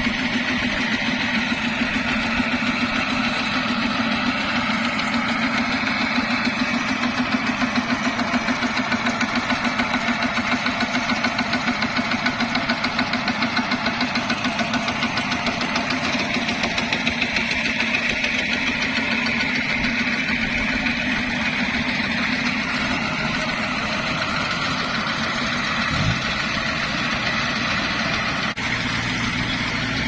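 Single-cylinder diesel engine of a two-wheel walking tractor running steadily at idle, with an even chugging pulse.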